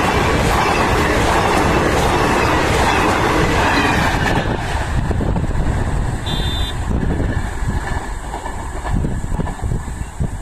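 Coaches of an express train rushing past at speed, a loud rush of wheels on rail and moving air that drops away suddenly about four and a half seconds in as the train clears. After that, a lower gusty rumble of wind on the microphone, with one short high beep about six seconds in.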